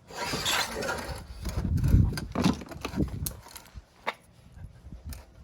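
Pieces of wood being handled: rustling and scraping with a heavy thump about two seconds in, then a few sharp knocks and clicks.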